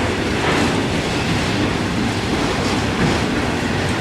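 Autorack freight cars rolling past, a steady rumble of steel wheels on the rails.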